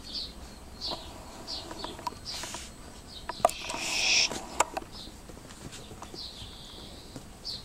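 A small bird chirping over and over, short high falling notes about twice a second, with puppies' claws ticking on a tiled floor. Near the middle there is a brief louder rustling scuffle.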